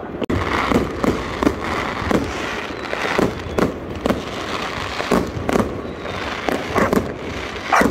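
Aerial fireworks exploding: sharp bangs and crackles at irregular intervals, about two a second, over a steady background noise.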